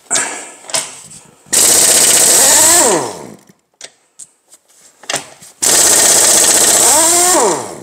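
Impact wrench rattling in two bursts of about one and a half to two seconds each, each ending as the motor winds down in pitch, undoing the bearing-cap bolts of an engine block with a 24 mm socket. Light clicks of the socket being fitted come before the first burst.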